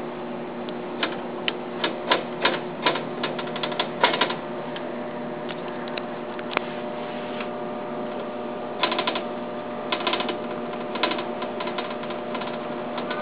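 Rockwell Walker Turner drill press on 440-volt three-phase power, running with a steady motor hum, broken by irregular bursts of sharp clicking and rattling: a cluster in the first few seconds and more about two-thirds of the way through.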